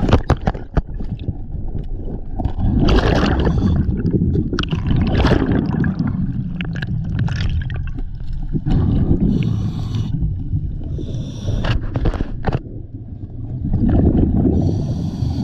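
Water gurgling and sloshing over a low rumble, swelling in irregular surges every couple of seconds, with a few sharp clicks near the start.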